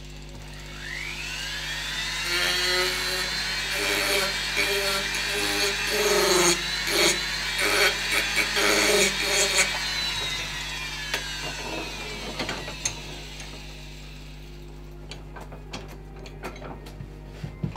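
Handheld rotary carving tool spinning up with a rising whine, running at high speed while grinding into the wooden carving, then winding down with a falling whine about ten seconds in. A few light clicks and knocks follow as it is set down.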